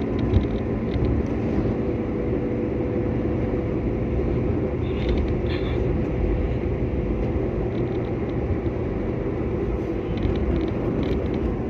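Car cabin noise while driving: a steady low rumble from the engine and tyres on the road, with a short knock about half a second in.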